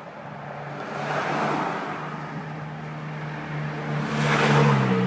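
The mail carrier's vehicle driving past fast: its engine and tyre noise build to a peak about four and a half seconds in, and the engine note drops in pitch as it goes by.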